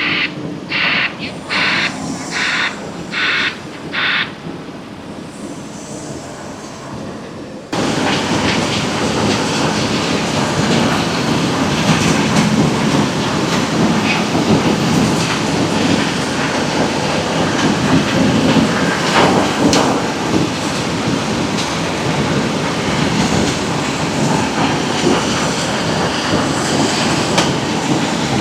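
Quarry machinery: a run of short, evenly spaced hissing beeps typical of a white-noise reversing alarm for the first few seconds, then, after a sudden switch just under eight seconds in, a loud, continuous clattering roar of heavy plant working rock and gravel.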